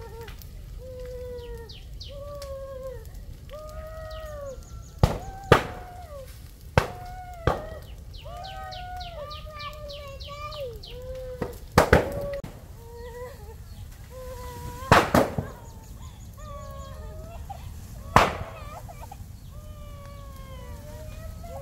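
An animal calling over and over in short cries that rise and fall in pitch, with several sharp knocks in between and a quick high twittering about halfway through.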